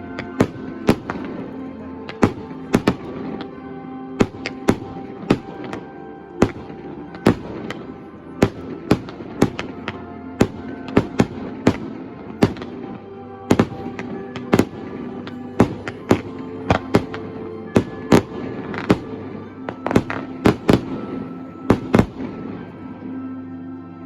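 Fireworks shells bursting in irregular succession, about two bangs a second, over orchestral-style music with sustained notes.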